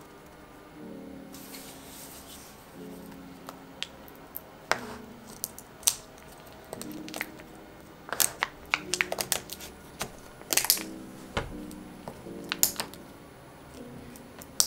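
Fingertips and nails tapping and clicking on the small sealed plastic paint cups of a gouache set in their plastic tray, a run of sharp clicks, busiest in the second half, over soft background music. A light rustle of paper comes near the start.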